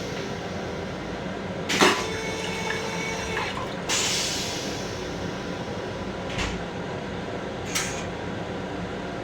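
Long Island Rail Road M7 electric railcar running, heard inside its small restroom, with four sharp knocks or clatters; the loudest comes about two seconds in.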